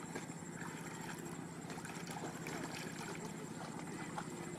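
Water sloshing with small splashes as a man wades waist-deep through a river and works a hand net through it. A steady low hum runs underneath.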